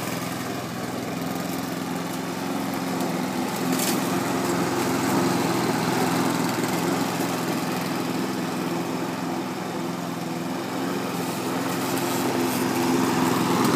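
Petrol walk-behind rotary lawn mower running steadily while being pushed across grass, growing a little louder near the end.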